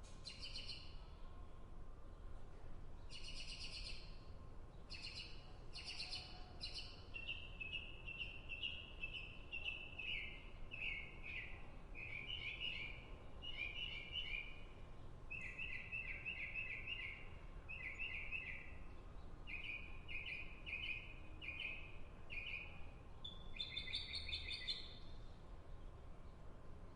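Songbird chirping in short, rapid trilled phrases, repeated with brief pauses between them.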